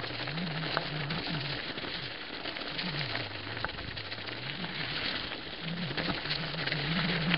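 A 2011 Specialized Rockhopper mountain bike rolls fast downhill over leaf-covered dirt single track. Its tyres make a steady crackling rustle. Under it runs a low hum that keeps rising and falling in pitch, with a few small clicks and knocks from the bike.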